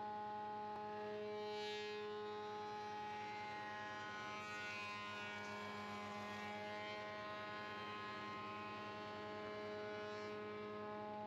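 Sedgwick spindle moulder running with a steady humming whine while a power feeder drives a jig-held wooden newel post cap past the cutter. From about a second and a half to seven seconds in, the cutter working the wood adds a louder rushing sound whose pitch slides up and down.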